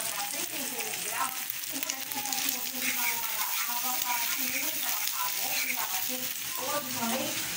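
Eggs and diced meat frying in hot oil in a nonstick frying pan, sizzling steadily while a fork stirs and scrambles them against the pan.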